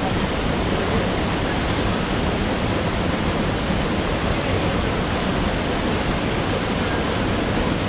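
Waterfall rushing: a loud, steady noise of falling water that does not change.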